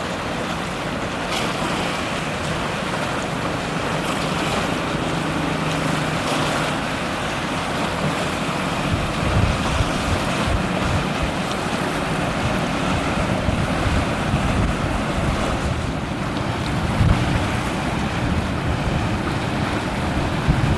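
Wind buffeting the microphone over the wash of sea water. A faint low steady hum is heard between about four and seven seconds in, and heavier rumbling gusts set in after about nine seconds.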